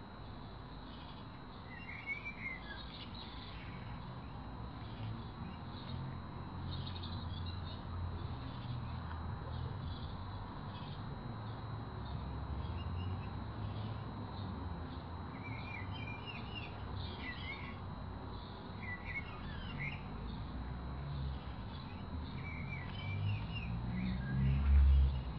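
Small birds chirping intermittently in short, quick phrases over a steady low rumble, with a louder low thump near the end.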